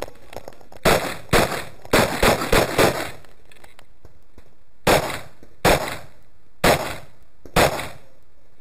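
Semi-automatic pistol firing about ten shots at close range: two shots half a second apart, a quick string of four, then four single shots spaced about a second apart.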